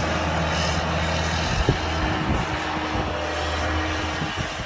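Engine of a small snow-plowing loader running steadily with a low hum, under a steady rushing noise, with a few short knocks around the middle; the hum fades near the end.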